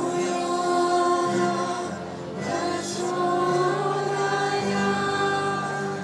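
A group of voices singing a devotional chant in long held notes, with a short break about two seconds in before the singing goes on.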